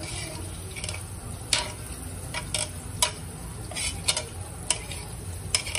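Plastic spatula stirring chopped tomato into ridge gourd and onion in a nonstick pan, giving irregular sharp scrapes and taps against the pan, about one or two a second, over the vegetables frying gently in oil.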